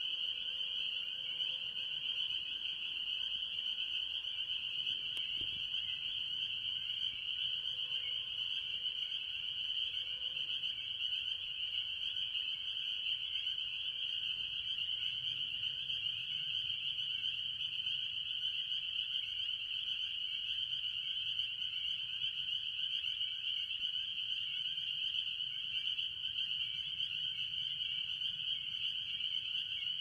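A dense breeding chorus of spring peepers, with other tree frogs mixed in. Countless high peeps blend into one steady, shrill ring.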